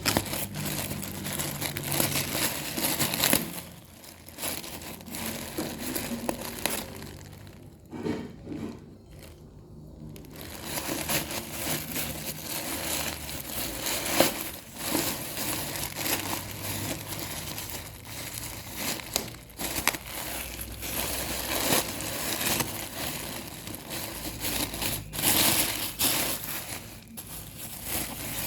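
Packaging being handled, crinkling and crumpling in irregular crackly bursts, with a quieter spell a few seconds in.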